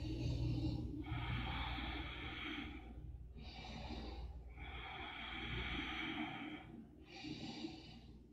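A person's slow, audible breathing through the nose, a few breaths in and out, each lasting one to two seconds.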